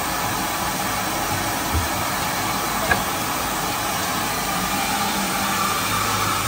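Steady hiss and hum of a robotic shoe-roughing cell's machinery, with a light knock about three seconds in and a low hum joining near the end as the robot arm moves toward the shoe.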